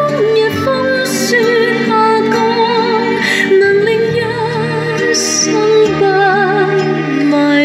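A slow song with a sung lead melody wavering in vibrato over steady accompaniment, played through an LS-Audio vacuum-tube stereo power amplifier and its speakers as a listening test after the amplifier's repair.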